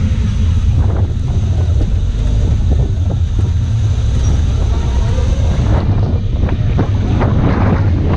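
Off-road vehicle driving, a steady low rumble under heavy wind buffeting on the microphone, with scattered short knocks and rattles that grow busier in the second half.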